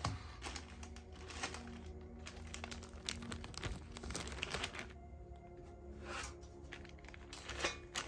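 Packaging crinkling and rustling in irregular bursts as it is handled during an unboxing, over soft background music.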